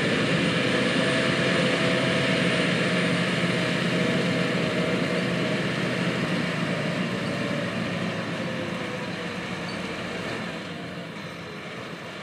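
John Deere 8600 self-propelled forage harvesters and tractors chopping corn silage, with a steady diesel engine drone under the chopping and blowing noise. The sound grows gradually quieter through the second half.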